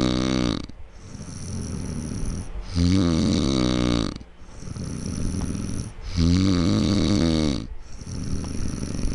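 A man snoring after a night of drinking beer. A loud snore comes about every three and a half seconds, each dropping in pitch as it ends, with softer breathy breathing between.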